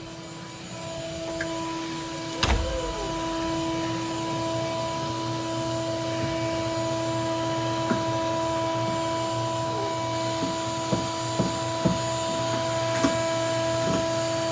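A steady mechanical hum holding one even pitch, with scattered short knocks and clicks over it.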